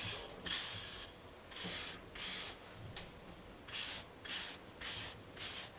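Wave brush bristles stroking through short, close-cut hair: a series of quick, hissy brush strokes, about nine, coming one or two a second.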